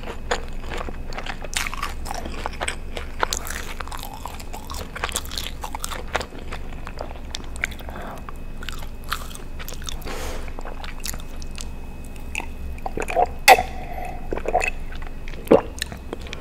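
Close-miked eating of a Pizza Hut meal: chewing and biting, with many small clicks throughout. Two louder, sharper clicks come near the end.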